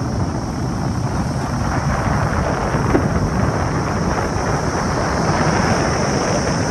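Wind buffeting the microphone of a moving bike, a steady loud rumble with hiss over it and no breaks.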